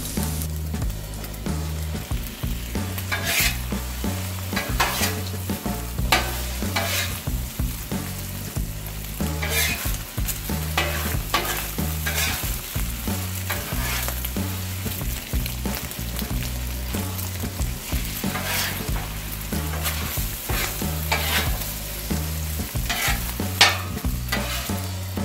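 Beaten eggs and diced potato, bacon and chorizo sizzling on a hot Blackstone steel flat-top griddle, with metal spatulas scraping and tossing the mixture on the griddle surface in irregular strokes.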